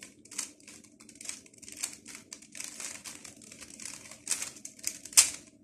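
Stickerless plastic 3x3 speedcube turned quickly through an eleven-move OLL algorithm (R U R' U R' F R F' R U2' R'): a rapid, irregular run of clicks and clacks as the layers snap round, with the sharpest clack near the end.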